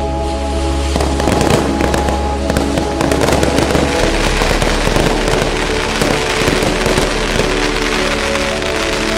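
Aerial fireworks crackling and popping densely, with the crackle heaviest from about one second in until near the end. Music with long held notes sounds throughout.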